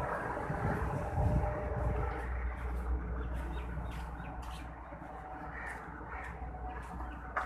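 Bumps and rustling from a handheld phone microphone being carried about, loudest in the first two seconds, over a steady low hum, with scattered light clicks later on.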